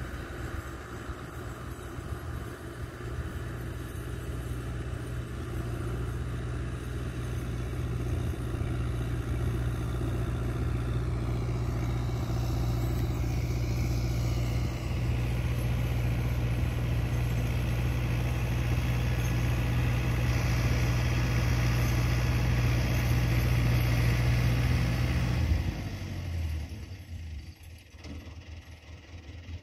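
Fiat 640 tractor's diesel engine working under load pulling a rotavator through the soil, growing louder as it comes closer. About 26 seconds in the engine drops abruptly to a low idle.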